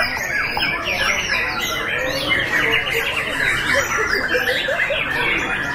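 Many white-rumped shamas singing at once from their contest cages: a dense, continuous jumble of whistled and chattering song phrases.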